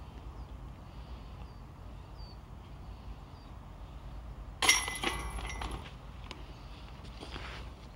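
A disc golf putt striking the chains of a metal chain basket: one sharp metallic clash about four and a half seconds in, then the chains jingle for about a second as they settle.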